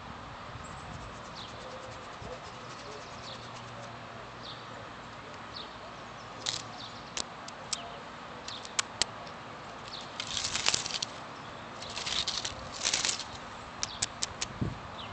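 Rustling and crackling in dry grass and leaf litter: scattered sharp clicks from about halfway in, then a few short bursts of rustle near the end, over a faint steady outdoor background.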